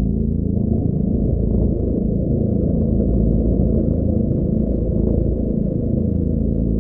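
Electronic ambient music: a low synthesizer drone with layered tones that glide down and back up in slow, repeating sweeps.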